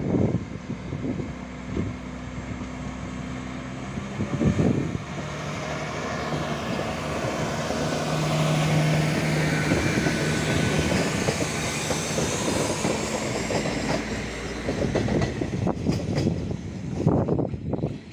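SA134-class diesel multiple unit departing: its diesel engine runs up under power as the railcar pulls away and passes close, with wheel and rail noise, then fades as it draws off.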